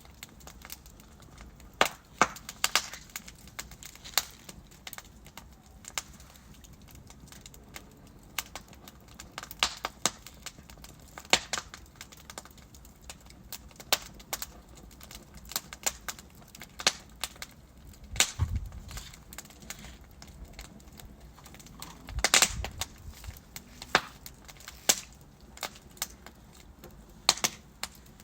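Wood fire in a fireplace crackling: burning logs giving off irregular sharp snaps and pops over a low steady hiss. A couple of louder, deeper pops stand out in the second half.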